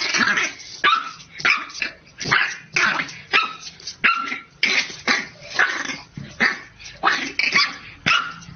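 French bulldog puppy barking at its own reflection in a mirror, a fast run of short, sharp barks about two a second.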